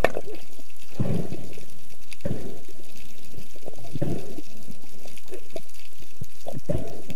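Water sloshing and gurgling, heard underwater, over a steady hiss, with a swell of gurgling every one to two seconds.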